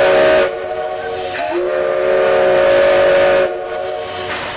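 C11 steam locomotive's whistle sounding a chord of steady notes in two blasts: one cutting off about half a second in, then a longer blast of about two seconds, with steam hissing between.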